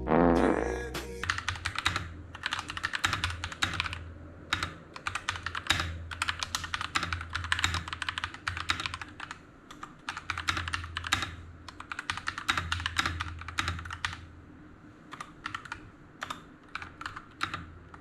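Typing on a custom mechanical keyboard with Akko CS Rose Red linear switches and pudding keycaps: a rapid stream of key clacks in bursts with short lulls. A brief falling tone sounds in the first second.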